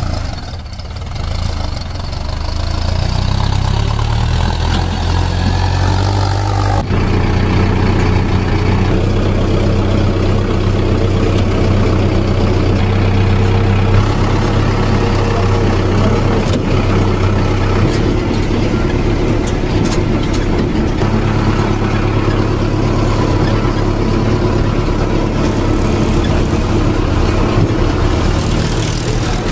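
Tractor engine running steadily. About a quarter of the way in the sound breaks off and picks up again, then runs on evenly.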